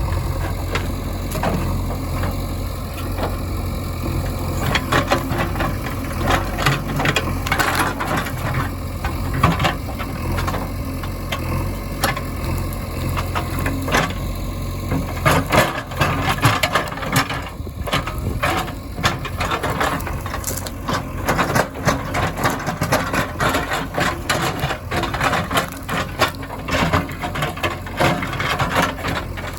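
A heavy diesel engine running steadily at low revs, with many irregular clatters and knocks over it from about four seconds in.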